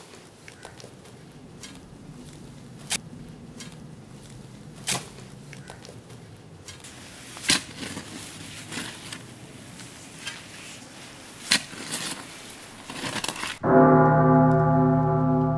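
A hand tool digging into soil: scattered sharp chops and scrapes every couple of seconds over a faint hiss. Near the end a loud, sustained musical drone comes in suddenly.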